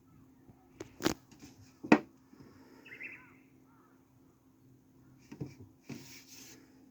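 Two sharp knocks about a second apart, then a few softer clunks near the end, over a faint steady hum; a short chirp sounds about halfway through.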